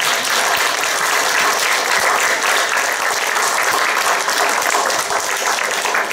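Audience applauding steadily, many people clapping their hands together.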